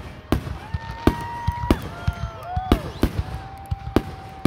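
Aerial firework shells bursting overhead in a rapid series of sharp bangs, about two a second, with several long, held high tones sounding between the bangs.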